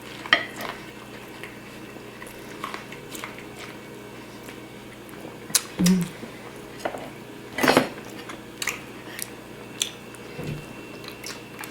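Close-up eating sounds: people chewing roast turkey, with scattered short clicks and clinks of cutlery against plates and a couple of louder brief bursts.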